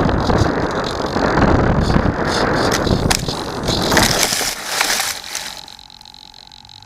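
Wind buffeting the onboard camera on a small foam RC plane as it flies low. A sharp knock comes about three seconds in, followed by scraping and rustling as the plane ploughs into tall grass. The rushing noise then drops away about five and a half seconds in, leaving only a faint steady whine.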